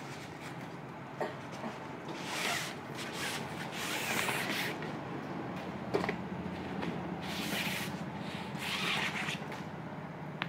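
Black cloth rod sleeve rubbing and swishing in four strokes as a 7 ft Lucana Black Mamba baitcasting rod is drawn out of it, with a couple of light knocks.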